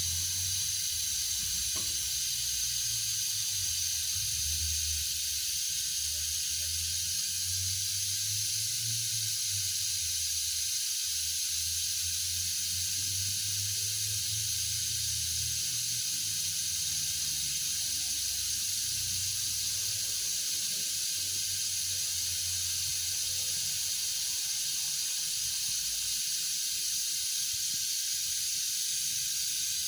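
Brake bleeding tool hissing steadily as it draws brake fluid and air out through the rear wheel's bleed valve, with a low uneven rumble underneath.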